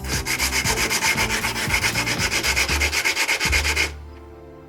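Road-bike disc brake pad rubbed back and forth on 80-grit sandpaper, a fast, even rasping of about eight or nine strokes a second that stops about four seconds in. The pad's surface is being sanded down until it discolours, to cure squealing disc brakes.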